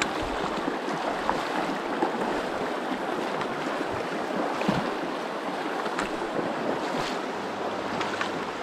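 Steady rushing of the North Fork of the Virgin River flowing through the canyon.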